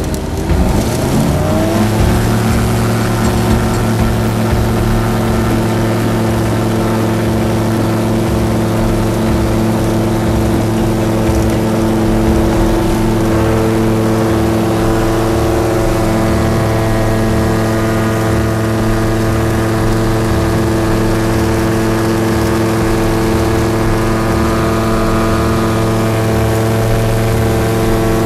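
Challenger light aircraft's engine and propeller revving up to full power over the first two seconds, then running steadily at full throttle through the takeoff and climb. Heard from inside the cockpit, with airflow rush.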